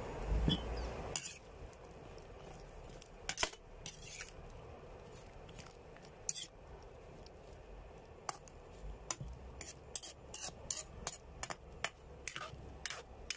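Metal ladle knocking and scraping against an aluminium wok while stirring chunks of squash. The knocks are scattered at first, then come closer together in the last few seconds.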